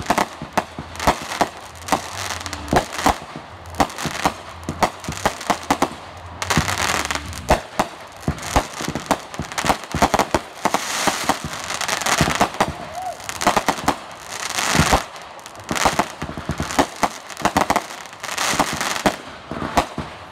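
Fireworks going off in quick succession: sharp bangs from aerial bursts, several a second at times, with stretches of dense crackling between them.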